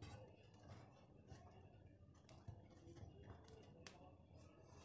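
Near silence with a few faint clicks and taps: a crusty baked loaf being lifted out of its round metal pan and handled.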